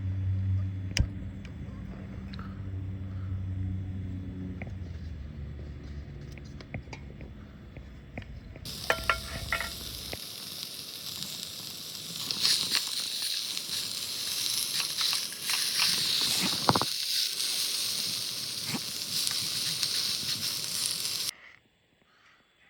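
Food frying in a hot pan: a steady sizzling hiss that starts about nine seconds in and cuts off suddenly near the end, with a low hum and a few clinks before it.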